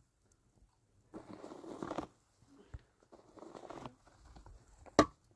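Long-handled shovel scraping and scooping snow off plastic sheeting in two rough strokes, each about a second long. A single sharp knock near the end is the loudest sound.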